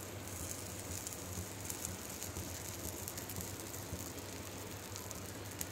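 Moong dal dosa batter and oil sizzling on a hot tawa: a steady hiss with faint scattered crackles, over a low steady hum.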